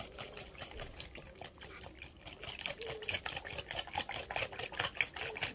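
Small wire whisk beating a thick cream, milk and egg quiche filling in a glass bowl, its wires ticking against the glass in a fast, steady rhythm that grows louder in the second half.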